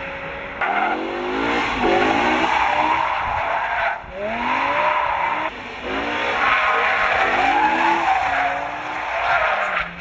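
BMW M6 drift car sliding sideways, its engine revving up and down again and again over the squeal of skidding tyres. The sound breaks off briefly twice, about four and five and a half seconds in.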